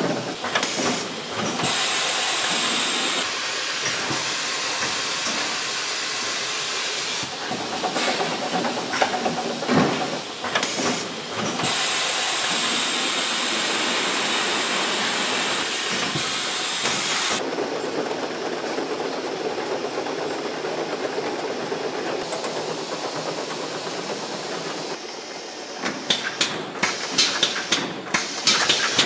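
Automated filling and capping line for plastic oil jugs running: a steady hissing machine noise with conveyor rattle that shifts abruptly several times, then a quick run of sharp clicks and clatters near the end.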